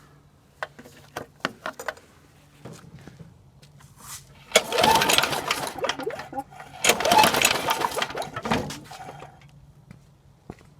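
A few light clicks, then two pulls on a Murray lawn mower's recoil starter, each spinning the engine over with a loud rattling whir for a second or two. The spark plug is out and the cylinder is wet with oil: the engine is hydrolocked.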